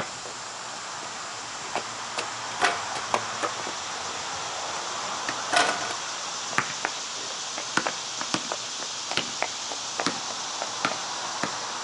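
Basketball bouncing on a concrete driveway: two louder knocks with a short ring in the first half, then the ball dribbled in a run of quick knocks through the second half.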